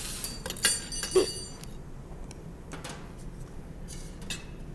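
Kitchen utensils and cookware clinking and knocking: a few sharp, ringing clinks in the first second and a half, then a couple of lighter clicks.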